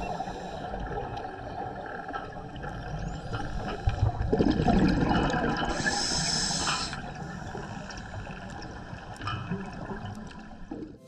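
Underwater sound of a scuba diver breathing through a regulator over a steady watery rush. A burst of exhaled bubbles gurgles about four seconds in, followed by a short hiss.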